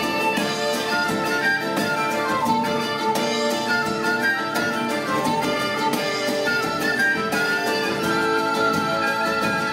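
Traditional Québécois folk band playing an instrumental tune live, with quick melody lines over acoustic guitar and a steady beat.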